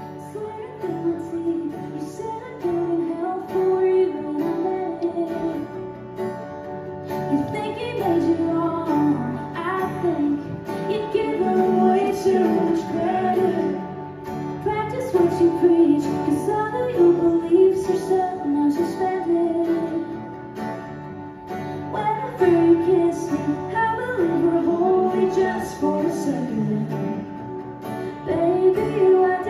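Live performance of a song: a woman singing lead over an acoustic guitar.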